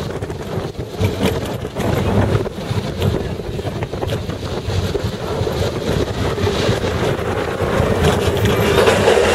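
Expedition Everest roller coaster train rolling along its track: a steady rumble of wheels on rails mixed with wind buffeting the microphone, growing louder toward the end.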